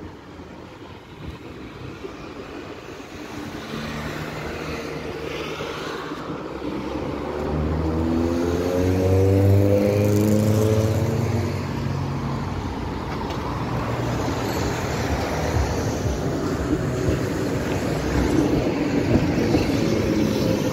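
A 71-605 (KTM-5M3) tram approaching along the tracks and pulling into the stop. It grows steadily louder, with a motor drone rising in pitch about halfway through, then a steady rumble.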